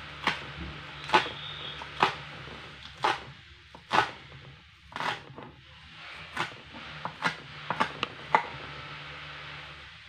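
Kitchen knife chopping spring onions on a plastic cutting board: about a dozen sharp chops, roughly one a second, with a few quicker strokes near the end, over a steady low hum.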